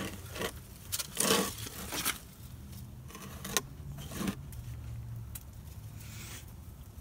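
Rustling and scraping of people moving through dry leaves and brush, with a few sharper scrapes in the first half, over a low steady hum.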